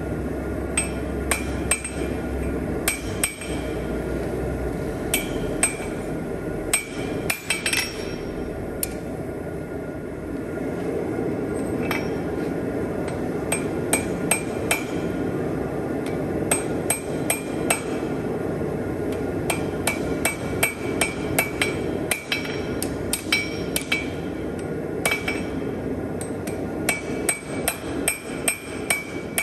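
Blacksmith's hand hammer striking hot steel on an anvil in irregular blows, each with a bright ring. The blows quicken to several a second near the end, over a steady background noise.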